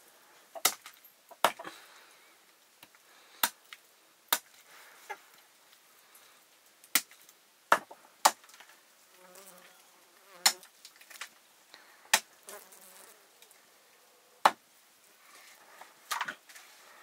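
Sharp knocks or taps, about a dozen, coming at uneven intervals.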